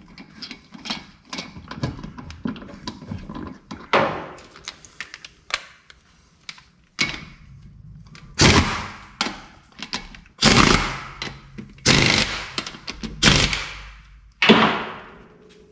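Lug nuts clinking as they are threaded onto a car wheel by hand. Then, about halfway in, a pneumatic impact wrench hammers them on in five short bursts about a second apart.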